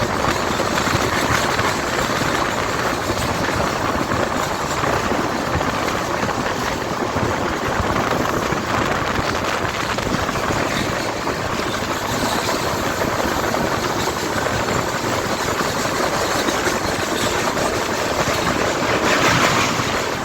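A passenger train rolling past, its wheels on the rails making a steady rushing rumble that swells briefly near the end.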